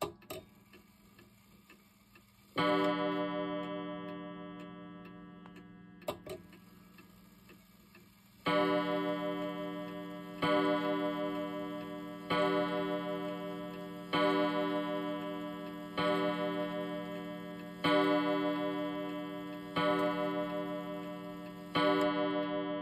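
Old pendulum wall clock's striking train hammering its gong: one stroke, a sharp click a few seconds later, then eight evenly spaced strokes about two seconds apart, each ringing out and fading, over the pendulum's tick-tock. The count of eight now comes out right after a stroke had been missing.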